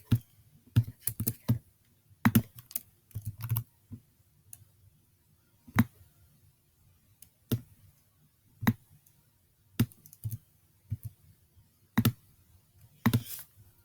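Clicks of a computer keyboard and mouse, irregular: single clicks a second or so apart with short quick runs of three or four.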